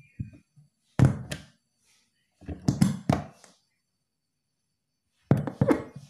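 Three short clusters of knocks and thumps, about a second in, around three seconds in and near the end, from tapping on a BM800 condenser microphone during a phantom-power mic check.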